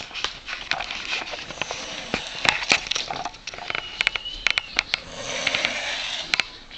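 A man snoring really badly, full of rattling clicks and crackles, with a thin whistle about four seconds in and a long hissing breath near the end.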